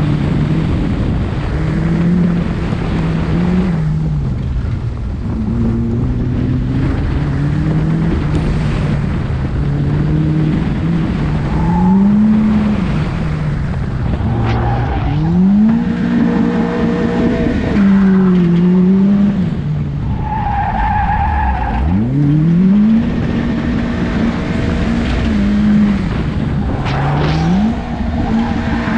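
Car engine driven hard through a slalom course, its pitch rising and falling constantly with throttle and gear changes and climbing steeply several times as the car accelerates out of turns. Tyres squeal briefly in the tighter turns.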